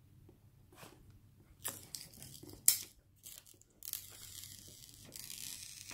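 Clear plastic protective film being peeled off a new smartphone's screen: crinkling crackles, a sharp snap about three seconds in, then a steady peeling rasp over the last two seconds.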